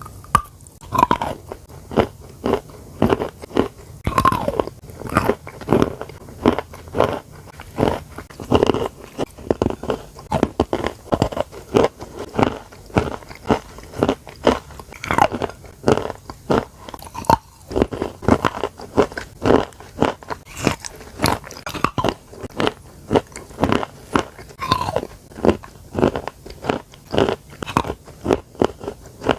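Someone biting and chewing creamy chalk, a steady run of crisp crunches at about two a second.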